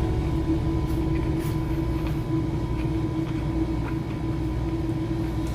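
Steady low rumble of a tanker's engines and machinery, with an even drone on top that does not change.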